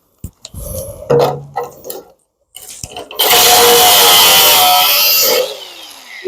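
Handheld power cutting tool cutting metal: a few short bursts and knocks, then a steady run of about two seconds. The run stops about five and a half seconds in and the tool winds down with a falling pitch.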